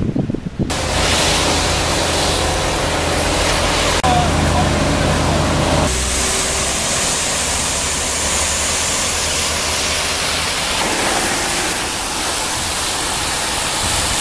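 Fire-brigade water monitor throwing a strong jet of water: a loud, steady rushing hiss. A low steady hum runs beneath it for about the first six seconds, and wind buffets the microphone briefly at the start.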